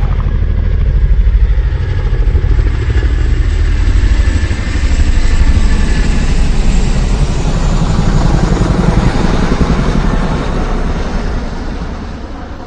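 Loud, low vehicle rumble with a fast, steady pulsing that fades away near the end.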